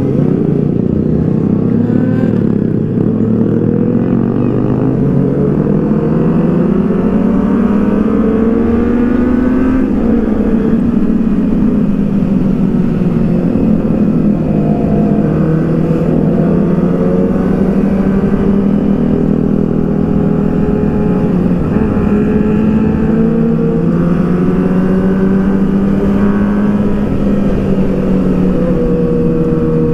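Kawasaki ZX-6R (636) inline-four sportbike running under way. Its engine and exhaust note climbs for several seconds, eases back about ten seconds in, then holds fairly steady with small rises and dips. Wind rumble runs underneath.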